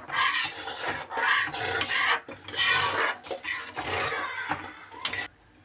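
Metal spatula scraping and stirring around the inside of a metal kadai of thin curry gravy, a steady run of scrapes about one or two a second, with one sharp knock near the end.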